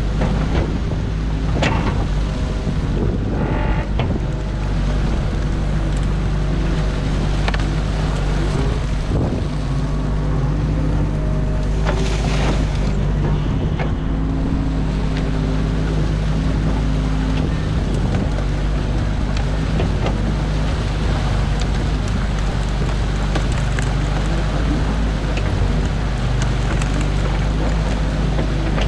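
New Holland excavator's diesel engine running steadily, heard from inside the cab, with scattered knocks and cracks as the bucket tears sticks and mud out of a beaver dam.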